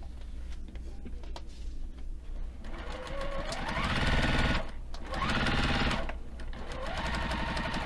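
Juki TL-2010Q single-needle lockstitch sewing machine basting long stitches through a quilt sandwich. It makes three short runs starting about two and a half seconds in, and its motor whine rises in pitch as it speeds up at the start of each run, with brief stops between them.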